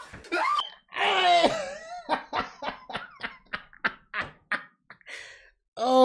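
A man gives a loud yell about a second in, then laughs hard in quick 'ha-ha' bursts, about four a second, trailing off into a breathy wheeze.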